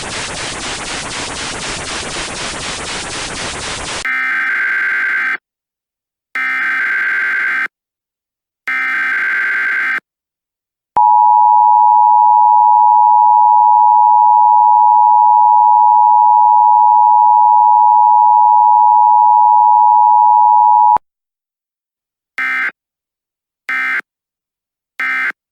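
Emergency Alert System tones: about four seconds of hissing static with a fast regular flutter, then three one-second bursts of SAME digital header data, a steady ten-second two-tone attention signal, and three brief data bursts near the end.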